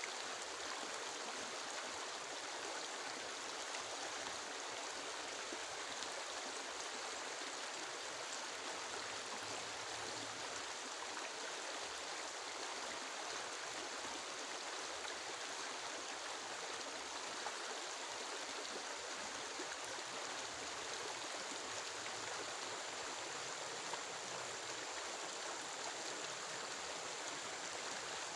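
Steady rushing of water, even and unbroken throughout.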